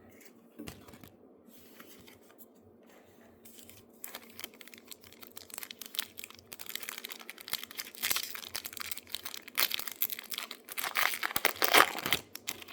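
A trading card pack wrapper being torn open and crinkled, starting about four seconds in and growing busier toward the end, with the crackle of the wrapper and cards being handled.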